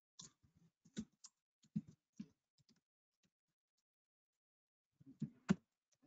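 Typing on a computer keyboard: a scatter of quiet keystroke clicks over the first couple of seconds, a pause, then a few more keystrokes near the end.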